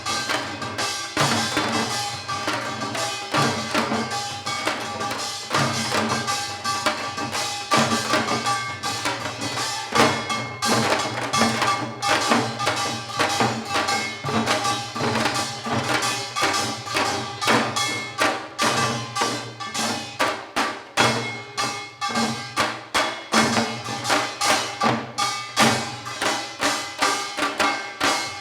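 Janggu, Korean hourglass drums, played in a fast seoljanggo rhythm with many strikes a second.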